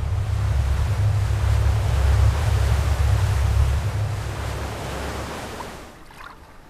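Loaded river cargo barge passing close by: a deep rumble under the rush of water from its bow wave, swelling to a peak about two seconds in and then fading, dropping away at about six seconds.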